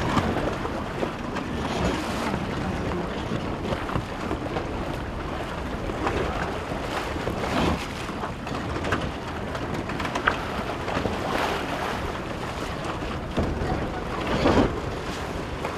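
Wind buffeting the microphone over water rushing along a sailing yacht's hull under way, with a few brief louder surges.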